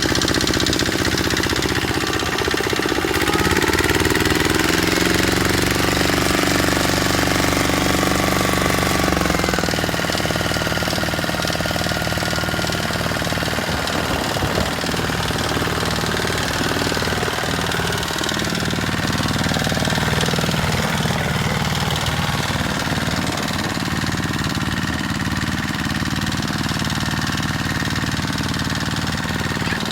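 Tractor engine running with a knocking, hammering beat; its pitch rises a few seconds in and shifts about ten seconds in.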